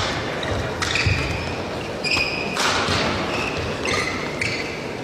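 Badminton doubles rally: rackets striking the shuttlecock with sharp cracks a second or two apart, and court shoes squeaking briefly on the court floor several times, over steady crowd noise in a large hall.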